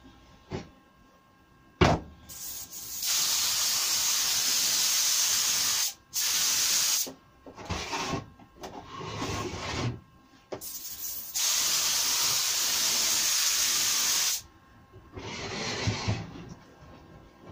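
Gravity-fed spray gun, fed from an air compressor at about 25 psi, spraying pre-catalysed clear lacquer. It hisses steadily in two long passes of about three seconds each, with a shorter burst after each. Between passes there is a sharp knock about two seconds in, then lighter knocks and rubs.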